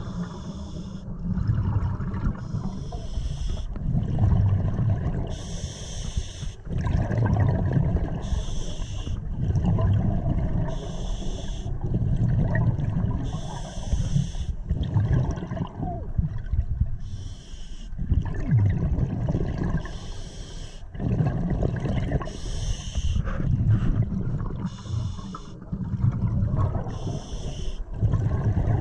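Scuba diver breathing through a regulator underwater: a hissing breath about every two to three seconds, alternating with a low bubbling rumble of exhaled air.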